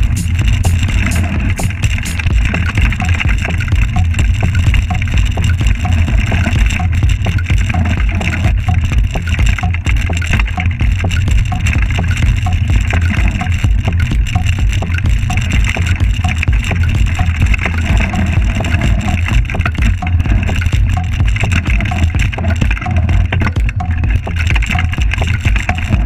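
Mountain bike riding down a rocky dirt trail, heard from a camera on the rider or bike: a steady heavy rumble of wind and trail vibration on the microphone, with tyres crunching over loose stones and the bike rattling in many small clicks.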